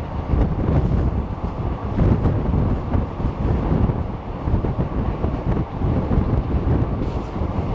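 Running noise of a moving Indian Railways express train heard from one of its own coaches: a steady low rumble of wheels on the track, with wind buffeting the microphone.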